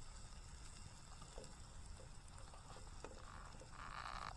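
Onions sautéing in butter in a pan over a campfire: a faint steady sizzle with a few small pops, swelling briefly near the end.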